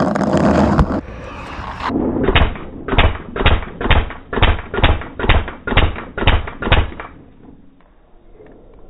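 Gear rustling and knocking for about two seconds, then a paintball marker firing about ten evenly spaced shots, a little over two a second, before it stops.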